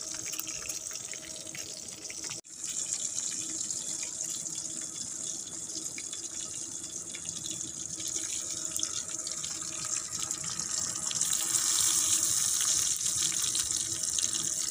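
Hot cooking oil sizzling steadily in a steel wok over a wood fire, with fine crackling as the frying pieces are turned with metal tongs; the sizzle grows louder toward the end.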